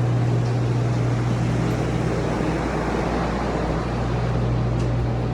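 Large water-damage drying fans (air movers) running steadily, a loud constant rush of air over a low, even motor hum.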